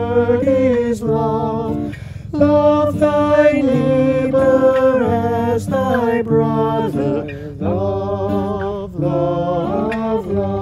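A woman and a man singing a slow song together in long held notes, accompanied by a strummed acoustic guitar.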